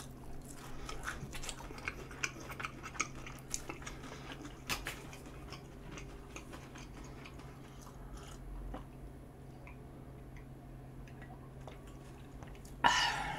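Close-up mouth sounds of a person chewing tteokbokki rice cakes, with many small wet clicks in the first few seconds and quieter chewing after. Near the end there is a short, louder burst of voice.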